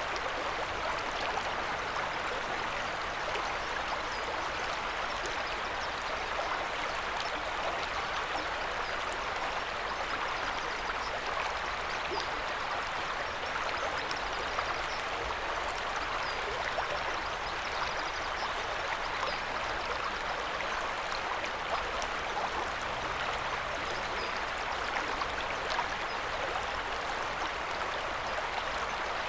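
River water flowing: a steady rushing murmur with small splashes scattered throughout.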